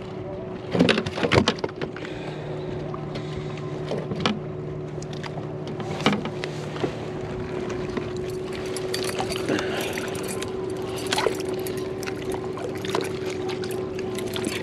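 MotorGuide Xi3 electric trolling motor whining steadily, with water lapping on the kayak hull. Several knocks and rattles come from a just-caught crappie being handled aboard, the loudest cluster about a second in.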